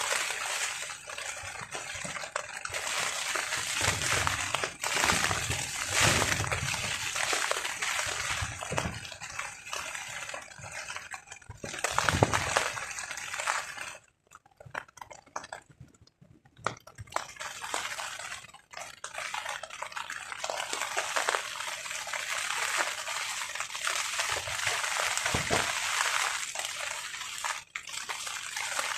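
Heavy rain drumming on a tarp overhead in a dense stream of fine drop hits, with low gusts of wind coming and going. About halfway through, the rain drops away for two or three seconds, then comes back as strong as before.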